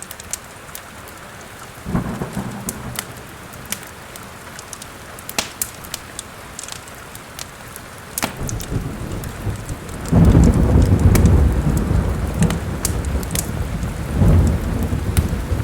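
Steady rain with rolling thunder: a short low rumble about two seconds in, then a loud, long roll of thunder from about ten seconds in that swells again near the end. Sharp crackles from an open fireplace fire pop throughout.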